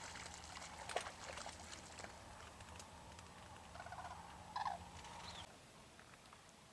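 A small flock of cranes calling in flight: a few short, rolling bugling calls, the clearest two about four seconds in.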